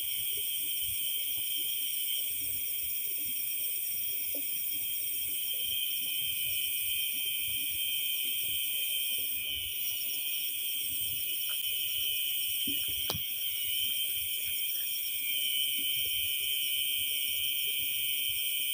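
Steady high-pitched chorus of night insects trilling in grass, with faint handling rustles and one sharp click about thirteen seconds in.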